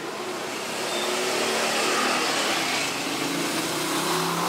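A motor vehicle engine running, getting louder over the first couple of seconds and again near the end.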